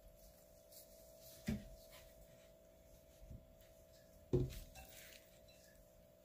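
Kitchenware being handled at a table: two short knocks, about a second and a half in and again past four seconds, the second the louder, with a fainter knock between, over a steady faint hum.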